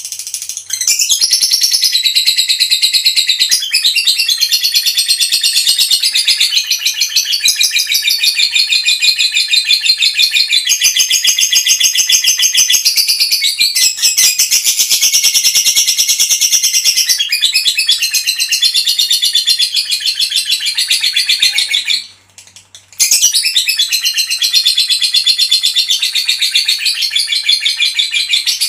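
Female lovebird giving its long 'ngekek' song: a continuous, rapid, high-pitched chattering trill, broken only once by a pause of about a second near the end.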